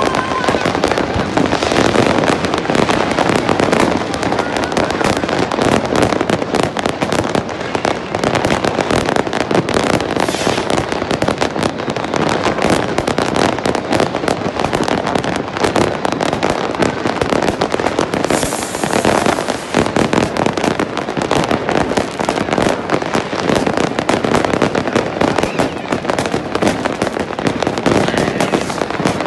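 Fireworks and firecrackers going off nonstop: a dense, unbroken rattle of overlapping cracks and bangs.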